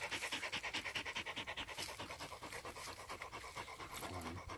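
Dog panting close by in a rapid, even rhythm.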